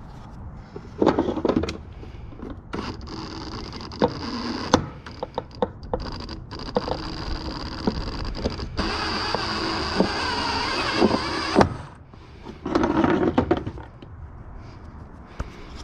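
Wire stripping machine slitting the insulation off copper wire: a small motor whines steadily for several seconds, louder near the end, with clicks and clatter as the wire is handled and fed through. Clattering comes before and after the run.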